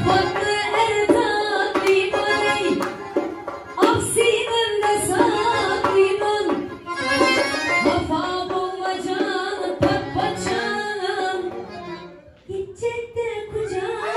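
Live Khorezm folk music: accordion and hand-drum percussion, with a woman's voice singing the melody.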